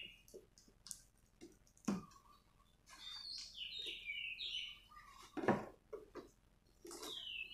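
Birds chirping, short high calls falling in pitch with a quick run of chirps in the middle, over the sounds of a knife cutting packing tape on a plastic box, with two sharp knocks, about two seconds in and just past halfway, that are the loudest sounds.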